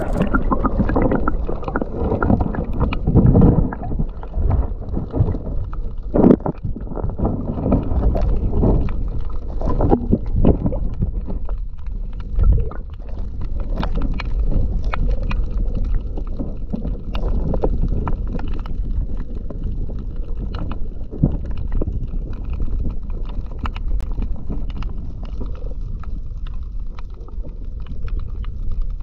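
Muffled water noise heard through a submerged camera: a dull, continuous rumble and gurgle with the high end cut off, scattered faint clicks and a few louder knocks.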